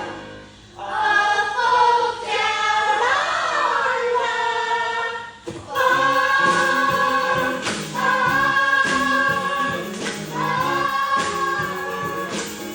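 A chorus of voices singing a musical-theatre number, with long held notes; the singing breaks off briefly near the start and again about five and a half seconds in.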